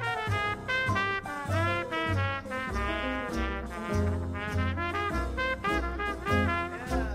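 Lively instrumental music led by brass instruments, with quick runs of notes over a pulsing bass line.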